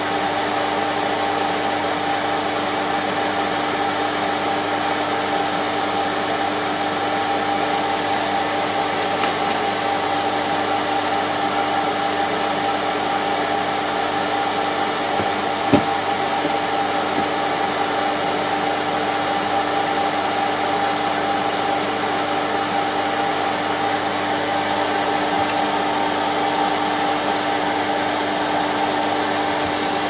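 Solder fume extractor fan running steadily with an even hum, and a single light tap about halfway through.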